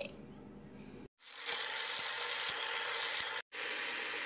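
Whole spices rustling softly into a plastic grinder jar, then an electric spice grinder running steadily as it grinds them to a fine masala powder; the grinding cuts out abruptly once about three and a half seconds in and starts again.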